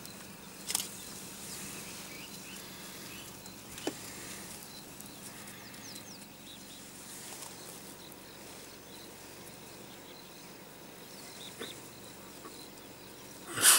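Outdoor bush ambience: a steady hum of insects with faint short chirps, a few soft clicks, and one loud sharp noise near the end.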